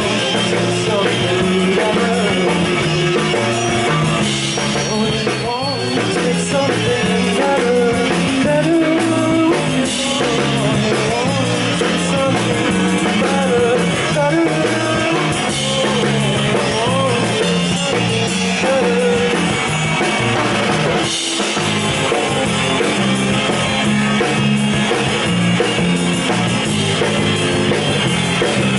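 Live rock band playing: electric guitars, bass guitar and drum kit together at a steady level.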